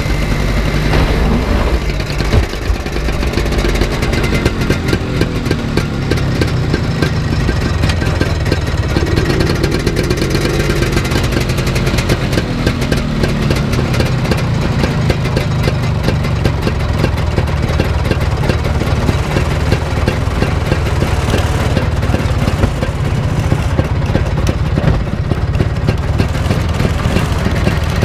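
Vintage snowmobile's two-stroke engine running close by, its revs rising and falling about a third of the way in as the sled is driven up onto a trailer, then running on steadily.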